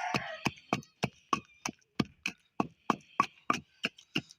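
A utensil knocking rhythmically in a bowl, about three strokes a second, as jaggery, black salt, black pepper and turmeric are worked into a thick paste. A rooster's crow trails off at the very start.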